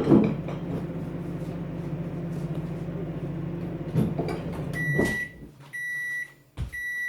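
Microwave oven running with a steady hum while cooking a mug cake, then shutting off about five seconds in and beeping three times, about a second apart, to signal the end of its cycle.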